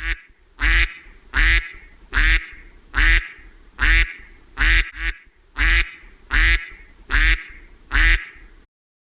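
A duck quacking repeatedly: about a dozen loud quacks in an even run, a little under a second apart.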